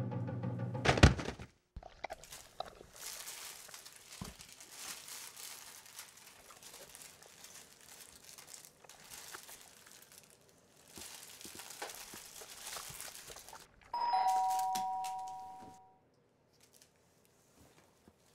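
A thump about a second in, then faint crinkling of candy wrappers as hands rummage in a bowl of sweets. Near the end a two-tone doorbell chime, a high ding then a lower dong, rings out over about two seconds.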